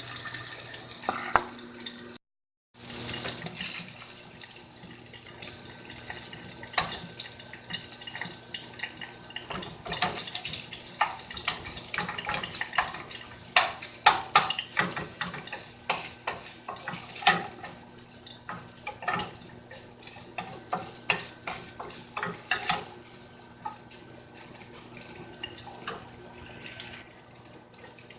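Leftover shredded chicken being stirred in a pan: a utensil repeatedly scrapes, clicks and knocks against the pan over a faint steady hiss, with a cluster of louder knocks about halfway through.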